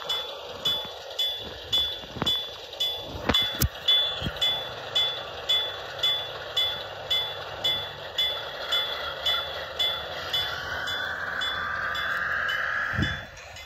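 Railroad crossing bell ringing steadily, about two strokes a second, over the noise of a Union Pacific train. A few sharp knocks come two to four seconds in, and a higher tone rises near the end before a thump.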